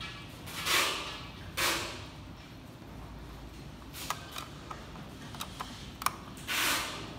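Handling sounds from the plastic case and circuit board of an opened LCD projector: three short scraping rustles as the board and its cables are moved. Between them comes a scatter of small sharp clicks as a screwdriver is set against the board's screws.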